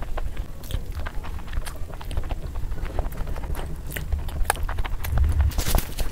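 Close-miked ASMR eating sounds: wet chewing and sharp mouth clicks of whole boiled eggs in thick masala curry being eaten by hand, over a low rumble that swells about five seconds in.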